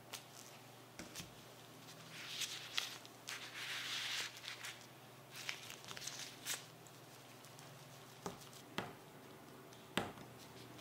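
Soft oiled noodle dough being worked by hand in plastic gloves and with a plastic scraper on a silicone mat: quiet squishing and crinkly rustling, thickest a couple of seconds in, with a few sharp taps scattered through.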